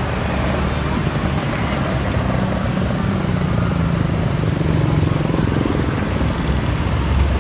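A motorcycle engine running close by, a steady low hum that shifts a little in pitch through the middle, over general street traffic noise.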